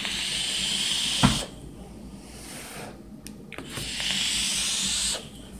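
A person blowing out breath in two long breathy hisses, one at the start and one about four seconds in, each about a second and a half, with a soft knock in between: vape vapour being exhaled after a hit from a rebuildable dripping atomizer.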